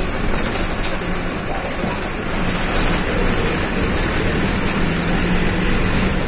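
City bus (Caio Apache Vip 4 body) running on the road: a steady engine drone with road noise, and a thin high whine during the first couple of seconds.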